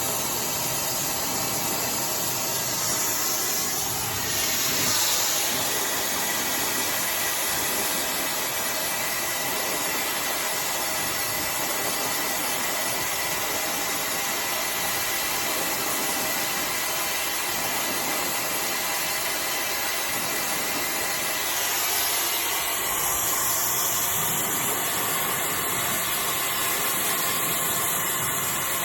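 iDryer AI Pro Style hair dryer running steadily: a rush of air with a faint motor whine. The hiss changes briefly about four seconds in and again from about twenty-two seconds in.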